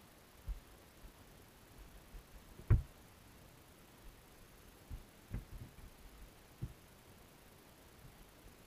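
Underwater sound picked up through a GoPro Hero3's waterproof housing: a faint steady hiss with scattered dull knocks on the housing and the wire trap. The sharpest knock comes a little under three seconds in, and a few softer ones follow about two and a half seconds later.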